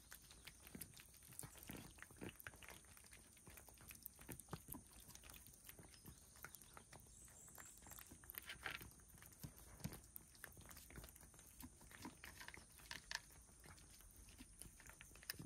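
Cats eating dry food: faint, irregular crunching and clicking of kibble being chewed.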